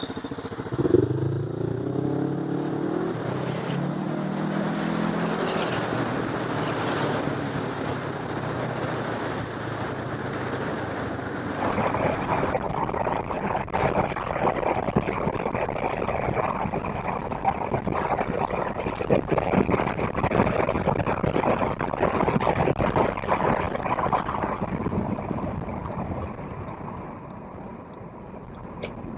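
A vehicle engine accelerating, its pitch rising and dropping through gear changes. About halfway through it gives way to the steady road and wind noise of a car travelling at speed, heard from inside the cabin, with small rattles.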